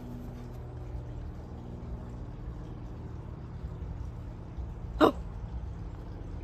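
A dog gives one short, sharp bark about five seconds in, over a steady low hum.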